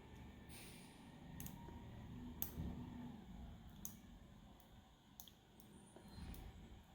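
Faint, irregular clicks of a lock pick and tension wrench working the pin stack inside an X-Pert padlock's keyway.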